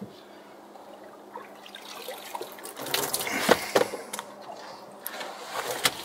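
Water splashing and dripping, with a few scattered knocks, as a caught pike is released from a landing net back into the water.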